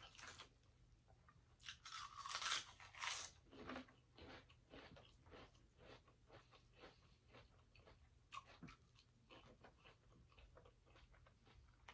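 Close-miked crunching of a potato chip being bitten and chewed, loudest about two to three seconds in. After that comes softer chewing, with many small sharp mouth clicks.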